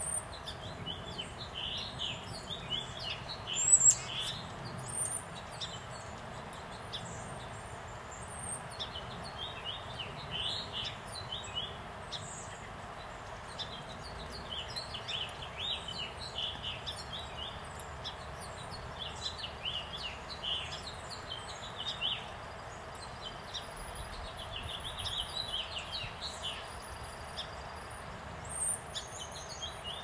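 Small birds chirping and twittering in scattered bursts over a steady faint outdoor background noise, with one sharp knock a little under four seconds in.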